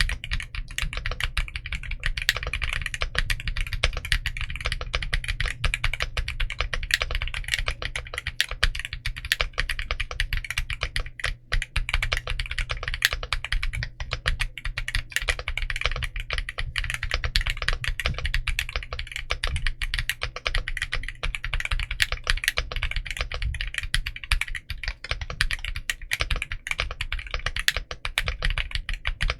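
Continuous fast typing on a mechanical keyboard with stock, factory-lubed Akko Creamy Purple Pro tactile switches (heavy bump, short travel) in an Akko MOD008 board with doubleshot PBT Cherry-profile keycaps, dense key clicks with a brief pause about eleven seconds in.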